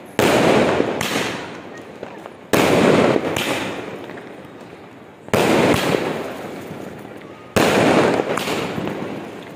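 Aerial fireworks bursting overhead: four loud bangs, about two to three seconds apart. Each is followed by a fading tail of smaller crackles.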